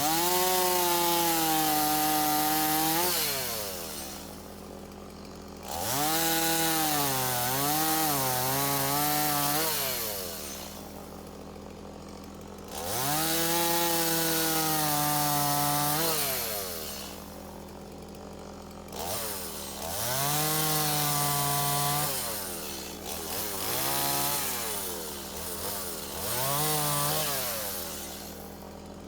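Two-stroke chainsaw revved up again and again, each time held for a few seconds and then let fall back to a quieter idle, as when cutting wood.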